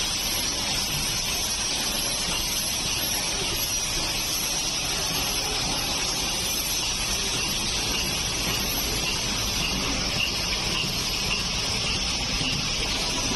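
Automated syringe assembly machines running: a steady hiss with machine noise underneath, and faint regular ticking in the second half.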